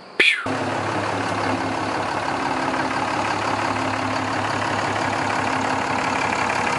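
A 2017 Ram 2500 pickup's engine idling steadily. It opens with a brief, sharp falling sound just before the idle comes in.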